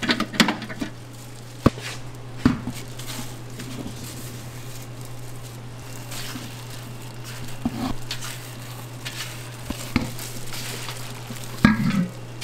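Gloved hands and a silicone spatula working a large mass of dough out of a stainless-steel mixer bowl: soft scraping and handling noises, with several sharp knocks against the bowl. A steady low hum runs underneath.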